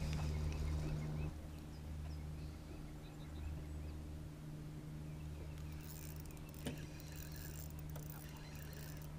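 Boat motor running steadily with a low hum, which drops in level about a second in and then carries on evenly.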